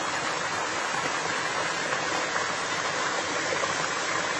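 Mountain stream swollen with snowmelt, its water running steadily.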